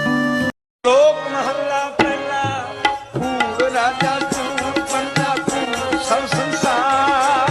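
Instrumental Indian devotional music: a held, sustained strain cuts off about half a second in, and after a brief gap a new piece begins with tabla strokes under a wavering melody.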